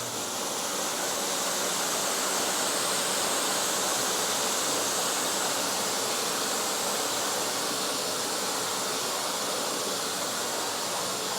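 Whitco pressure washer spraying a steady high-pressure water jet, a continuous even hiss, while its burner heats the water.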